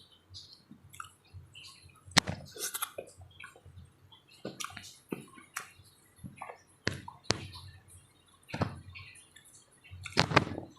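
Close-up wet eating sounds: soft papaya in syrup being chewed and smacked, with irregular clicks and squelches and a louder wet burst near the end.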